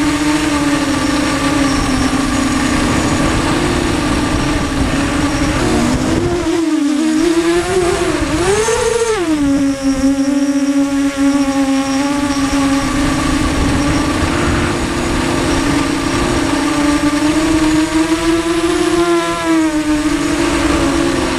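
The four Cobra 1960KV brushless motors and propellers of a QAV250 racing quadcopter whining in flight, heard close up from the onboard camera over a rushing noise. The buzz holds a steady pitch, then about a third of the way in it drops away and surges sharply as the throttle is cut and punched, and it climbs again briefly near the end.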